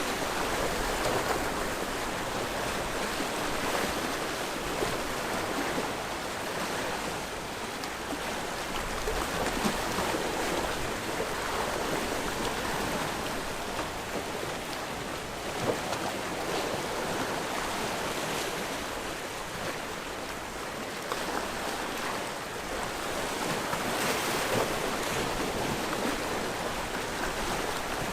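Sea waves washing on the shore: a continuous surf wash that swells and eases every few seconds, with a few brief louder splashes.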